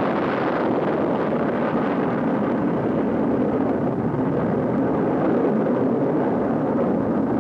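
Rocket engines at liftoff: a loud, steady roar of rumbling noise with no distinct tone.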